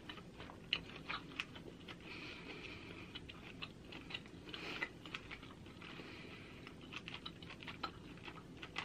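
Faint chewing of a chewy, fatty bite of pork chop, with many small irregular wet mouth clicks.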